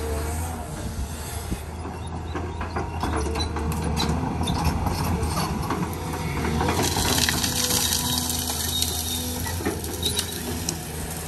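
Caterpillar hydraulic excavator running under load with a steady diesel engine drone as its bucket pushes through brush, with frequent cracking and snapping of branches.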